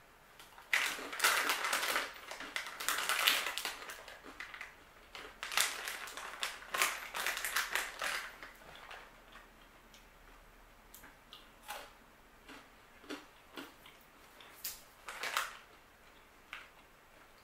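Crisp chocolate-covered rice crackers crunching as they are chewed: a close run of quick crunches for about the first eight seconds, then only scattered faint crunches.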